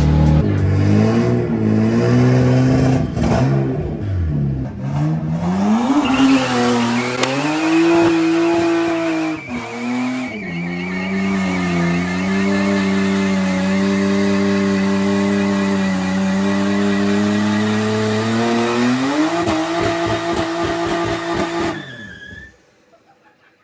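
Nissan Skyline R33 GTST's turbocharged RB25DET straight-six revving up and down as a burnout begins, then held at steady high revs with a steady tire squeal over it for about fifteen seconds. It cuts off abruptly near the end.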